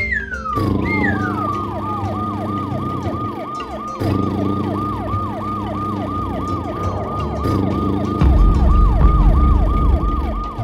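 Cartoon siren sound effect: a fast falling electronic sweep repeating about four times a second, over a low droning backing that grows louder about eight seconds in. Two falling whistles sound near the start.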